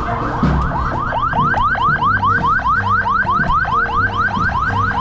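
An electronic siren-like yelp: a rapid train of rising wails, about five a second, growing clearer about a second in, over low rumble.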